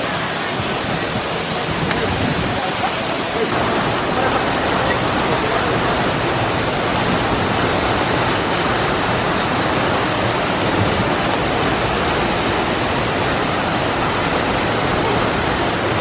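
Man-made waterfalls pouring down a rock face into a pool: a steady rush of falling water.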